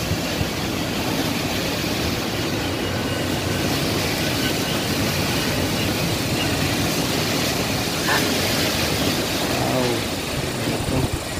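Super typhoon wind blowing hard and without a break, a loud steady rush of noise that buffets the microphone: the storm strengthening toward its peak.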